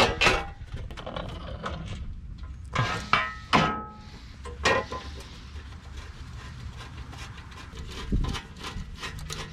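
Scattered metal knocks and clinks as a new front hub-and-bearing assembly is set into the steering knuckle, one with a short metallic ring about three seconds in, and light clicking near the end.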